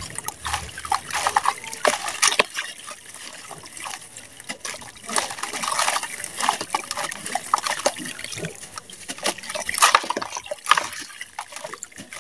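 Wet red sand squeezed and crumbled by hand over a bucket of water, with gritty crackling and clumps splashing and trickling into the water.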